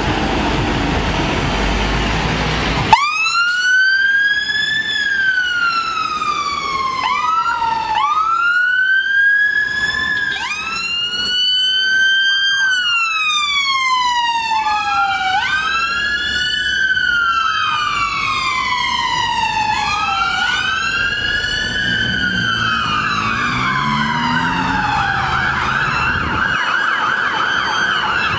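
Heavy fire appliance's engine running, then about three seconds in the sirens of fire and rescue vehicles switch on. They wail in long cycles, each rising fast and falling slowly, with a second siren overlapping out of step. Near the end one changes to a fast yelp.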